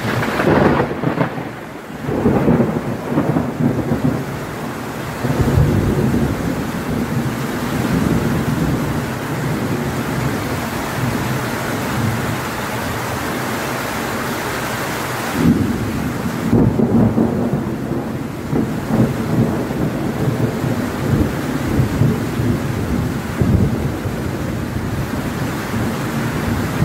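Heavy rain pouring steadily, with low thunder rumbling and swelling several times underneath.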